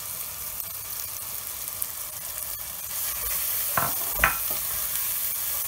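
Moong dal sizzling as it is sautéed in hot oil with onions and spice pastes in a pot, with a wooden spoon stirring through it. The sizzle grows a little louder past the halfway point, and there are two short spoon strokes against the pot about four seconds in.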